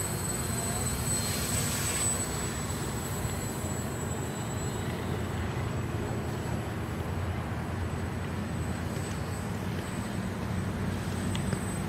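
Small electric RC aircraft motor running steadily: an even drone with a thin high whine that is strongest in the first two seconds.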